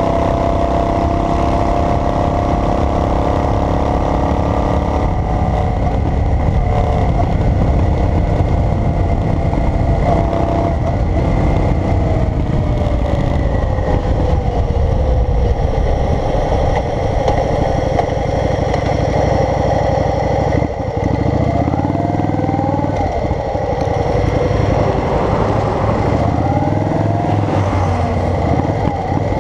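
Vehicle engine and road noise on a highway drive, steady and loud. The engine's pitch sinks slowly, and after a brief dip about two-thirds through it climbs in steps as the vehicle accelerates through the gears.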